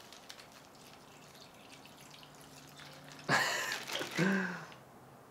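Water trickling faintly from a plastic water bottle into a zip-lock bag. About three seconds in comes a louder rustle and crinkle of the plastic bag as it is shaken and squished to mix the marinade.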